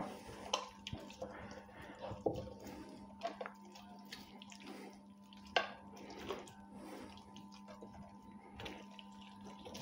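Hands turning and handling raw wild boar meat in a terracotta bowl: quiet wet squelches and a few sharper clicks and knocks, over a faint steady hum.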